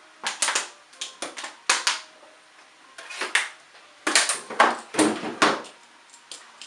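Plastic Lego pieces clattering and clicking as they are handled, in four short bursts of rapid knocks.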